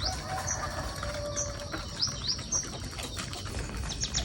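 Small birds chirping: short high chirps every half second or so, then a quick run of about eight rapid notes near the end, over a faint steady high tone.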